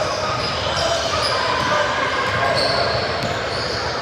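The sound of a basketball game in a gym: a ball dribbling on the court, short high sneaker squeaks, and a steady mix of players' and spectators' voices.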